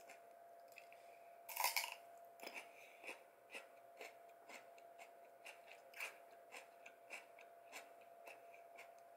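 A person biting into a piece of raw cucumber with one loud crunch about a second and a half in, then chewing it with crisp crunches about twice a second.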